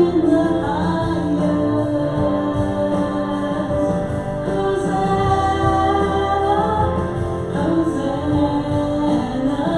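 A woman singing a contemporary worship song over instrumental accompaniment, with long held notes.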